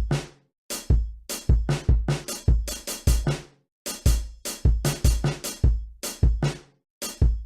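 Music: a drum beat with a heavy kick drum, about three hits a second, breaking off into brief silences roughly every three seconds.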